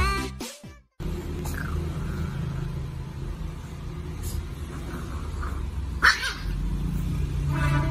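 Pop music fading out in the first second. Then a puppy gives a few short whines and yips over a steady low rumble, the loudest about 6 seconds in and a longer pitched whine near the end.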